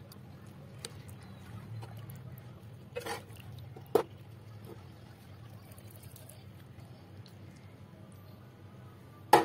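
A metal ladle knocking against a bowl and pot while serving chicken thukpa: two sharp clinks about three and four seconds in and a louder one at the end, with soft liquid sounds of broth being ladled over noodles.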